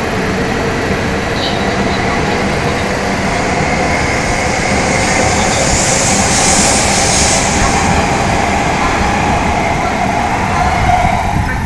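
An E5 series Shinkansen pulling out of a station and gathering speed as it passes close by, with a continuous rumble and rushing noise. A hiss swells about six to seven seconds in, and a whine grows louder near the end as the long nose goes by.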